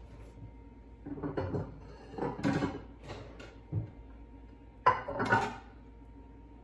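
White ceramic dinner plates clattering against each other as they are taken from a cupboard. About five seconds in come two sharp, louder clinks as a plate is set down on the stone countertop.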